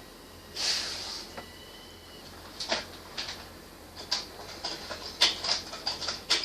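Waxed tinder stick burning with irregular sharp crackles and pops that come faster toward the end, after a short hissing burst about half a second in.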